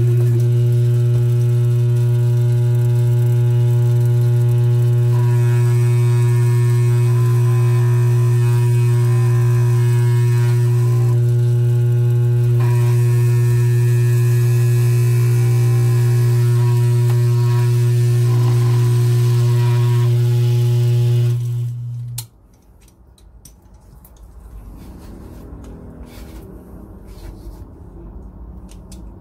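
Dental lab vibrator running with a loud, steady low electric hum and buzzing overtones as it shakes an impression tray while dental stone is poured in. The hum cuts off suddenly about three quarters of the way through.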